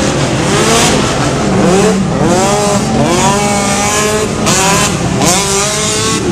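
An off-road vehicle's engine revving hard. Its pitch sweeps up and falls back again and again as the throttle is worked.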